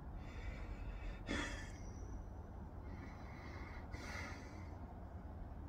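A man's quiet breaths through the nose between sentences, once about a second in and again, fainter, near four seconds, over a low steady hum.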